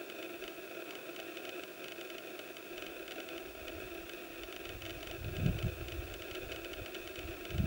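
Wind buffeting the microphone in low, irregular gusts over a steady faint hiss. The strongest gust comes about five and a half seconds in.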